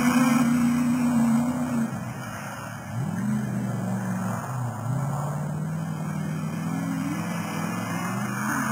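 Land Rover Defender competition safari car's engine running hard across the course, its note dropping about two seconds in as the throttle comes off, then climbing again and rising and falling with the throttle, with another climb near the end.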